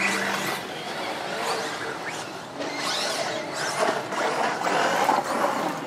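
Electric radio-controlled stadium trucks racing on a dirt track: several motor whines rise and fall as the trucks accelerate and pass, over tyre noise on the clay.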